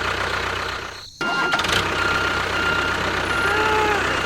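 Small vehicle engine running steadily, with short high beeps repeating about twice a second. The sound drops out briefly about a second in.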